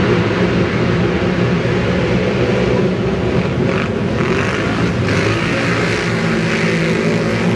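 Many racing ATV (quad) engines running at once, one row of quads accelerating off the start line in a dense, steady drone of engines.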